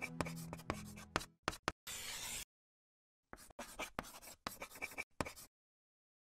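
A marker writing in short scratchy strokes as a phrase is hand-lettered. There is a pause of about a second partway through, then the strokes stop about a second before the end.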